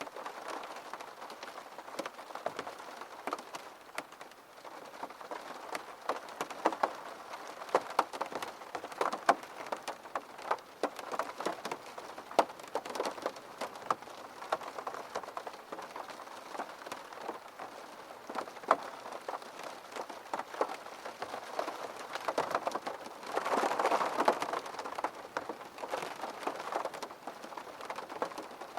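Steady rain falling, with many separate drops ticking on a hard surface; it swells heavier for a couple of seconds about three-quarters of the way through.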